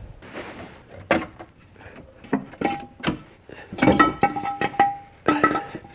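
Metal parts and tools clinking against each other: a few light knocks at first, then from about halfway a quick run of sharp clinks, each with a short metallic ring.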